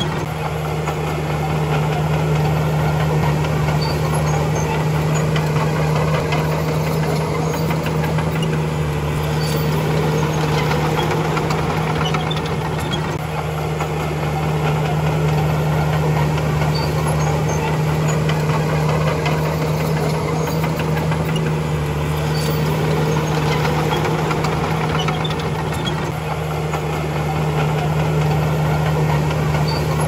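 Diesel engine of a heavy earthmoving machine running steadily with a constant low drone, easing off slightly twice along the way.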